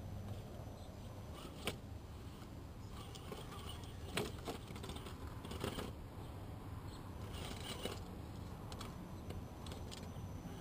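Scale RC crawler with a Holmes Hobbies Torquemaster 27T brushed motor creeping over wooden slats and rocks: short spurts of motor and gear whir, with scattered sharp clicks and knocks from the tires and chassis.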